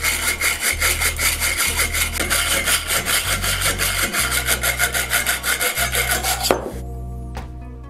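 Hacksaw cutting through a bicycle fork's metal steerer tube held in a saw guide, in quick, even rasping strokes. The sawing stops with a short clunk about a second and a half before the end, as the tube is cut through.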